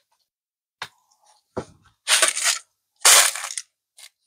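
Small metal laptop screws clicking and rattling as they are sorted through by hand: a couple of sharp clicks, then two short clattering rattles about a second apart, and a last light tick.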